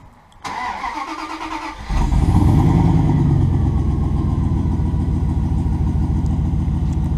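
Turbocharged 5.2 L Magnum V8 in a Dodge Ram cranked by its starter, catching about two seconds in and settling into a loud, steady idle through its newly built exhaust.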